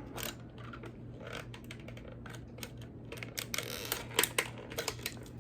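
Wire cutters and metal parts clicking and snapping while working loose the plastic wire holders in a light ballast's metal framing, with scattered clicks at first and a quick run of clicks in the second half.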